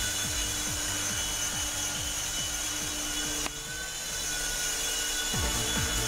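Small electric RC toy helicopter's motor and rotors whining steadily in flight, under electronic dance music with a thudding kick-drum beat. The sound cuts suddenly about halfway through, the beat drops out, and it comes back near the end.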